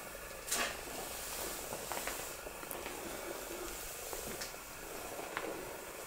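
Quiet steady hiss with a few soft clicks and knocks, the loudest about half a second in.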